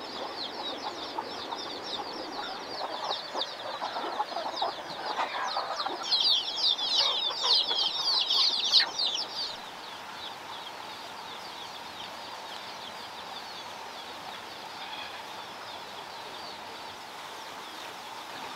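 Chickens clucking, with many quick high-pitched calls that swell about six seconds in and stop abruptly at about nine and a half seconds. After that only a faint steady outdoor hiss remains.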